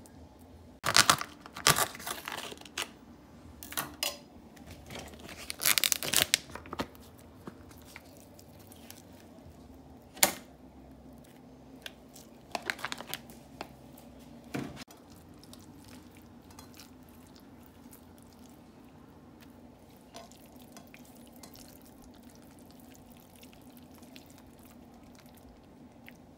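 Parchment paper being torn and crinkled in several short bursts over the first half, then only a faint steady low hum.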